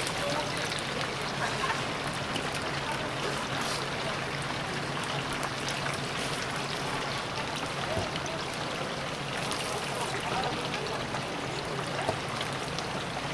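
Chicken deep-frying in hot oil: a steady sizzling hiss of bubbling oil, with a steady low hum underneath.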